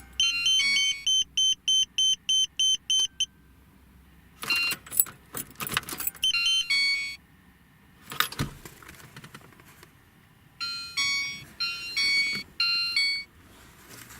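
Car keys jangling between runs of high electronic beeps: a fast string of about five beeps a second at first, then a burst of changing-pitch chirps near the end. No fuel pump hum comes in; the pump is not working, so the car will not start.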